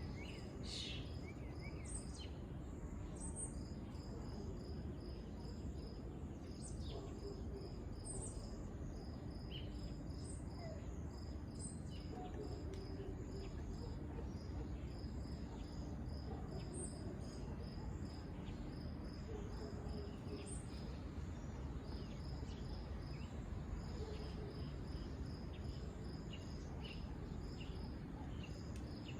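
Insects chirping: a high, evenly repeated chirp that comes in runs of several seconds and pauses in between. Short, higher bird-like calls come and go over a steady low background hum.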